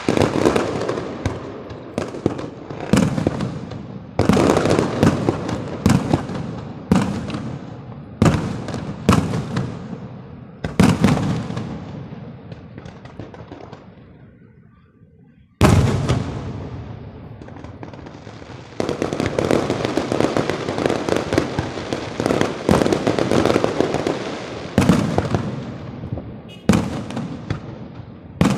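Fireworks going off in quick succession: sharp bangs, each trailing off in crackling, about one a second. The sound dies away a little before the middle, then a sudden loud burst sets off a dense, continuous barrage of bangs and crackle.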